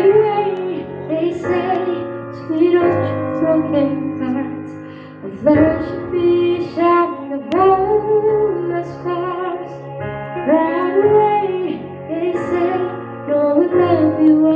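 A woman singing into a microphone over held electronic keyboard chords.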